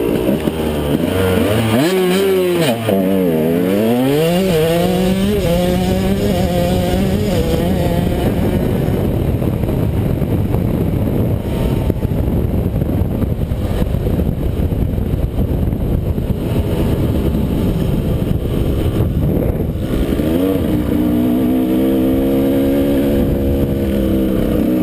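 KTM 125 SX two-stroke dirt bike engine running hard under a rider. Its pitch dips and climbs again a couple of seconds in and rises as it pulls; in the middle a loud rushing noise covers it, and near the end the engine note comes back clear and steady.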